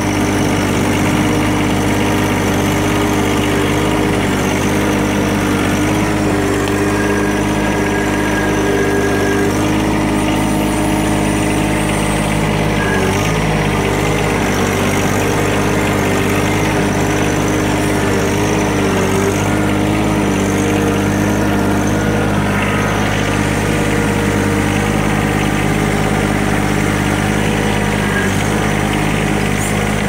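John Deere 1-series sub-compact tractor's three-cylinder diesel engine running at a steady speed as the tractor drives over snow. Its note dips briefly about thirteen seconds in.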